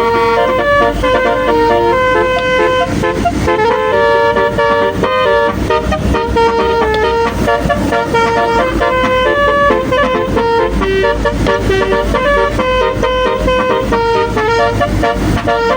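Telolet-style multi-tone bus horn playing a quick melody, its notes stepping up and down every fraction of a second without a break.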